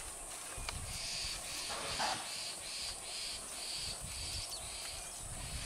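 Insect buzzing in short rhythmic pulses, a little over two a second, over a steady high-pitched insect hiss and a low rumble. A brief louder noise comes about two seconds in.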